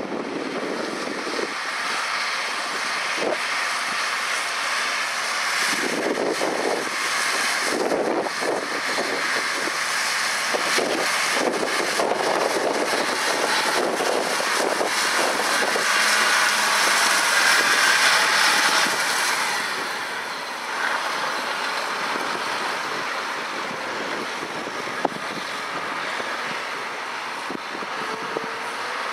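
John Deere 8295R tractor running under load as it pulls an Amadas SPC-6 stalk puller/chopper through cotton stalks. It grows louder as it comes close, is loudest about two-thirds of the way through, then drops off.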